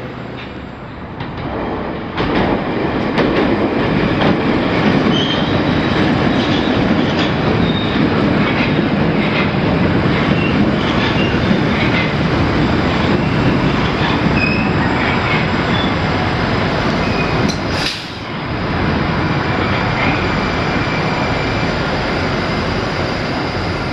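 Moscow Metro train running along the track: a steady dense noise of wheels and running gear, with short high wheel squeals scattered over it. It grows louder about two seconds in and dips briefly about eighteen seconds in.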